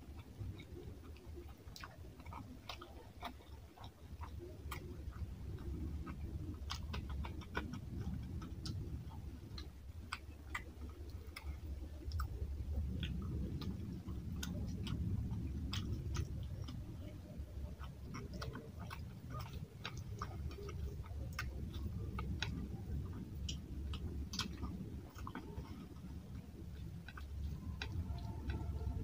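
Chewing and eating sounds from a mouthful of fish curry and rice, with many sharp, irregular wet clicks and smacks over continuous low chewing noise.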